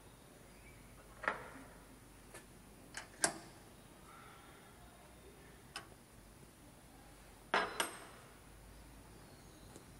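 Sharp metal clicks and knocks of a stainless steel vegetable dicer's guard and latch being handled and fitted into place, about six separate strokes, the loudest a quick double knock near the end.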